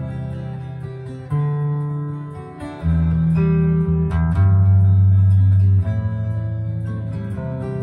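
Acoustic guitar being played with no singing: chords are struck and left to ring, a new one about every second and a half.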